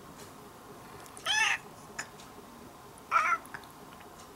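Orange-and-white domestic cat meowing twice, two short calls about two seconds apart, the first rising and falling in pitch.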